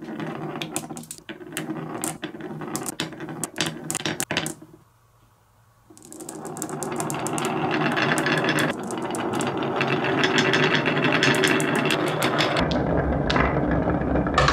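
Glass marbles rolling down the curved grooves of a HABA wooden wave slope, clicking against the wood and each other. First a few marbles with sharp separate clicks, a short pause, then from about six seconds in a dense, continuous rolling rumble of many marbles that grows louder.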